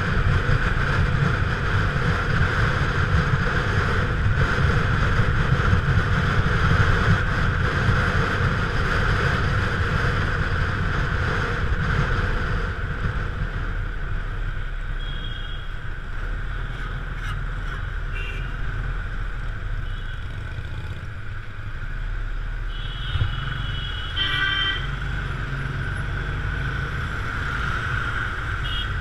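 A motorcycle running along a road, its engine mixed with wind noise on the microphone. Other vehicles sound short horn toots several times in the second half, the loudest a pair about three-quarters of the way through.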